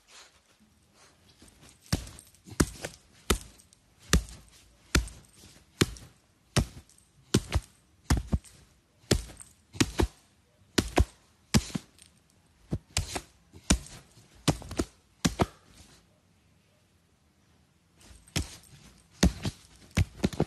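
A run of sharp knocks on a hard surface, one to two a second and not quite even, that stops for about two seconds near the end before a few more follow.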